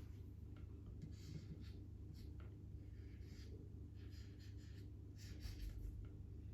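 Faint scratching of a pen writing, in short irregular strokes over a low steady room hum.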